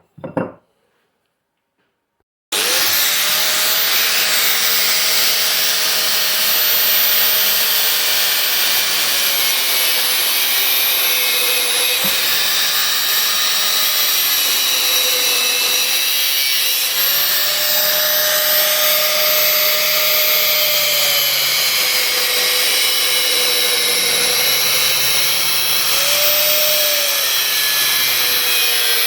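Electric power tool starting abruptly and running continuously, its motor pitch sagging and recovering several times as it is loaded while cutting rebar.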